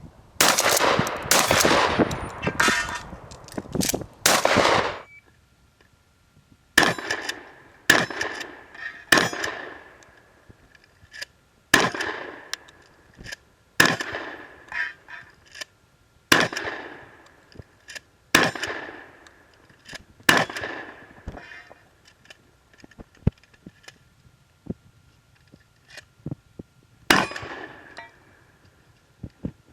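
A 12-gauge Remington 870 pump-action shotgun firing. There is a rapid cluster of reports in the first five seconds, then single shots about every two seconds, with metallic clangs and a lingering ring after hits. Smaller clicks come between shots.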